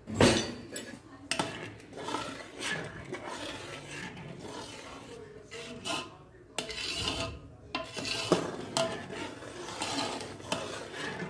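Long metal spoon stirring and scraping a thin rice-flour batter around a large metal pot, the spoon rubbing and clinking against the pot's bottom and sides in irregular strokes. There is a sharp knock of metal on metal right at the start and another sharp clink about eight seconds in.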